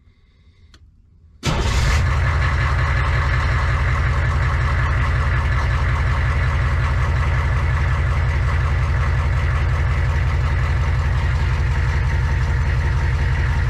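Humvee engine starting abruptly about a second and a half in, then idling steadily.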